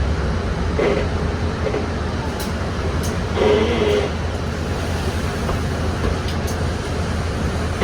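Interior of a moving city bus: a steady low engine and road drone, with a few brief creaks and clicks from the bus body and fittings. The loudest of these comes about three and a half seconds in.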